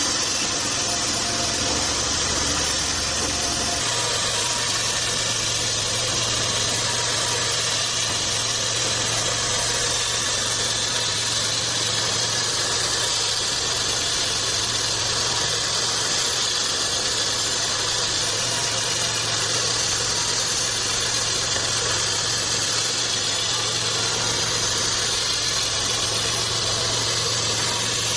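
Bandsaw sawmill machinery running steadily, a constant engine hum under a broad hiss; the low hum shifts to a slightly higher pitch about four seconds in.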